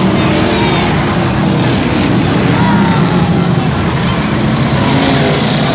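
Stock cars and pickup trucks racing, several engines running and revving at once in a loud steady mix with pitches rising and falling.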